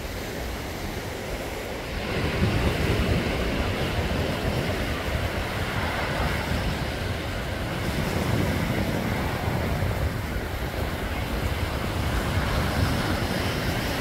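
Surf breaking and washing up a sandy beach, with wind buffeting the microphone in a low rumble; it grows louder about two seconds in.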